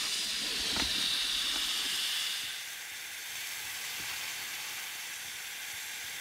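Frozen, ice-coated steak sizzling on fire-heated rocks. The hiss is loudest for the first two seconds or so after it goes on, then settles into a steadier, quieter sizzle.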